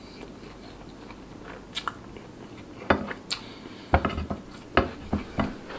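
Close-miked mouth sounds of a man chewing a mouthful of rice and meat, with a few sharp wet smacks and clicks, louder and more frequent in the second half.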